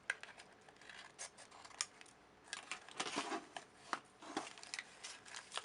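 Scissors snipping wrapping paper: a series of short, separate cuts with paper rustling between them, as an overhanging bit is trimmed off.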